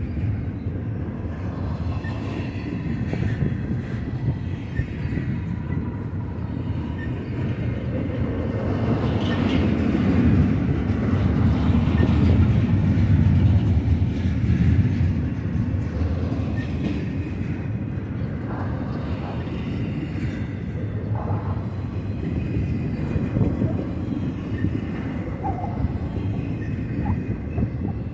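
Double-stack intermodal freight train's well cars rolling past: a steady rumble of steel wheels on rail, swelling louder for a few seconds in the middle.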